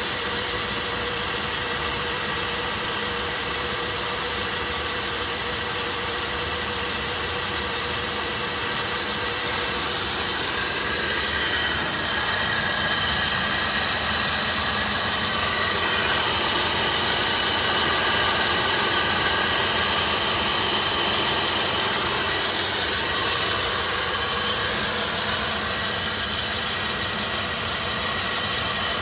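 Holden Commodore's 3.8-litre pushrod V6 (Buick 3800) running steadily at idle, with a thin high whine over it. It gets a little louder for about ten seconds in the middle.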